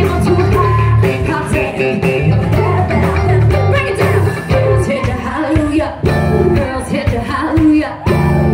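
Live rock band: a woman singing into a microphone over drums and electric guitar.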